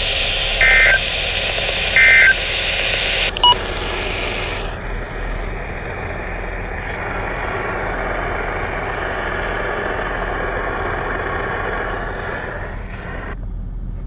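Radio receiver hissing with static, with three short warbling Emergency Alert System data bursts in the first couple of seconds. A sharp click with a brief tone follows, then steady static until it cuts off abruptly near the end.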